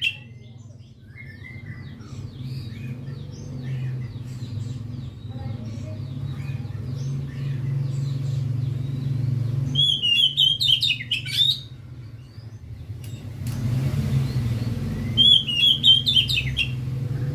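Oriental magpie-robin (kacer) singing: two loud bursts of rapid, quickly varied whistled notes, about ten and fifteen seconds in, with fainter chirps between them. A steady low rumble runs underneath.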